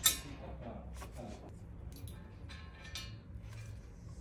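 Metal engine parts and tools clinking as they are handled during assembly of a 4.4 V8 diesel engine. A sharp clink with a short ring comes right at the start, followed by several lighter clicks.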